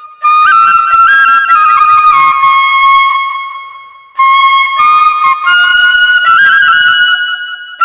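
Instrumental ringtone melody in a flute-like wind-instrument voice, a single line of stepping notes. One phrase fades out a few seconds in, and after a short gap a new phrase begins.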